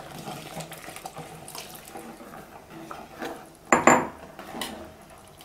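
Thick coconut milk being poured from a glass bowl into a steel pot of hot payasam, a soft liquid pouring sound, with small clinks and a louder clatter of metal against the steel pot about four seconds in.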